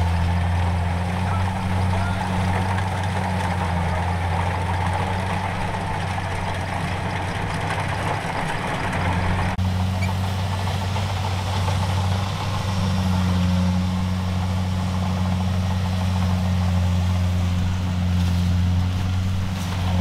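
An engine running steadily at an even speed, a low drone with a brief break about halfway through.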